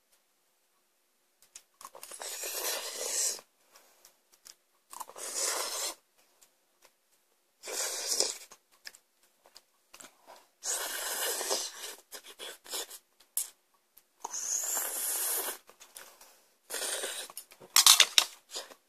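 A person slurping instant cup-ramen noodles: about six noisy slurps, each a second or so long with short pauses between, the sharpest and loudest near the end.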